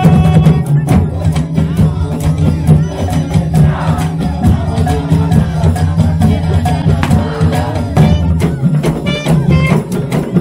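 Traditional percussion music: many drums beating in a dense, fast rhythm, with a crowd of voices shouting around the middle.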